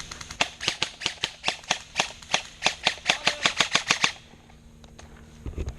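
Airsoft gun firing a fast string of sharp shots, about seven a second, that stops about four seconds in.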